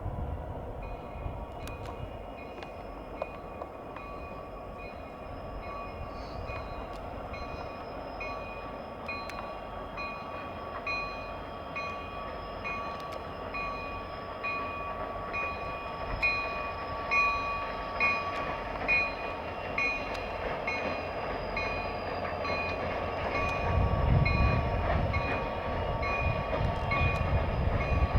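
Approaching diesel freight train: a low engine rumble that grows louder near the end, with a bell ringing at an even pace, somewhat under twice a second.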